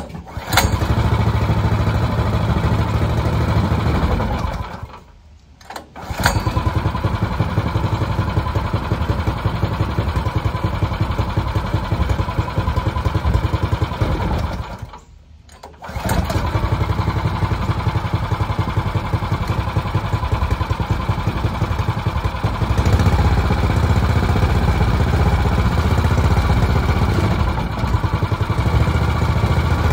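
Small gas engine on a Harbor Freight water pump starting and running. It dies away twice, about 5 and 15 seconds in, and starts again each time. From about 23 seconds it runs a little louder and steadier.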